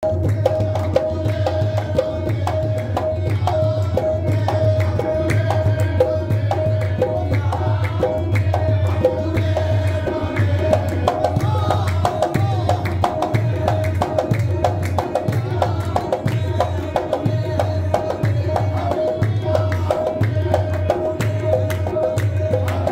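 Live devotional qawwali-style music: a harmonium holding a steady note over a fast, even hand-drum rhythm, with voices singing at times.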